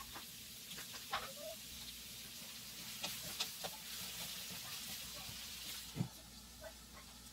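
Sausage and vegetables frying with a soft sizzle in a nonstick wok, stirred with a wooden spatula, with a few light scraping clicks. About six seconds in, a glass lid is set on the pan with a single sharp clack.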